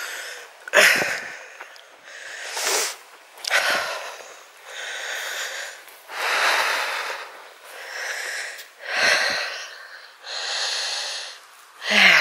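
Heavy breathing close to the microphone, a loud in or out breath about every second, from the person holding the camera as she walks.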